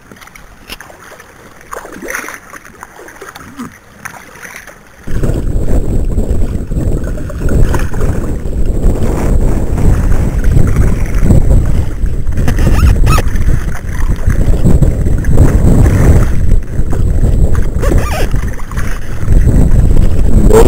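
Faint water and outdoor sounds for about five seconds, then wind buffeting the camera microphone comes in suddenly as a loud, gusting low rumble and goes on.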